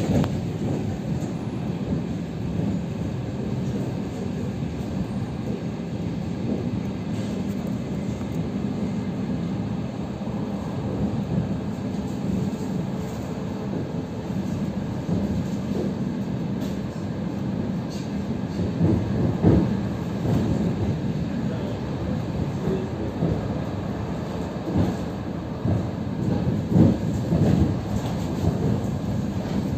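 Suburban electric train running along the line, heard from inside the passenger car: a steady rumble of wheels on track, with a few louder knocks in the second half.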